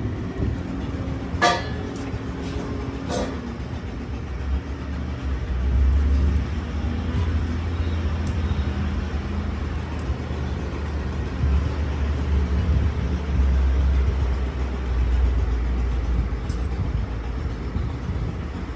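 Road traffic going by, with two short horn toots in the first few seconds and then a low vehicle engine rumble that swells and fades.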